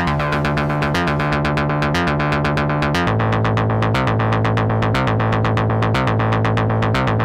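Cherry Audio Octave Cat software synthesizer, an emulation of the 1976 Octave CAT, playing a sequencer preset: a fast, even stream of repeating notes over a bass note re-struck about once a second. The bass steps down about three seconds in, and the bright top of the sound fades from about a second in.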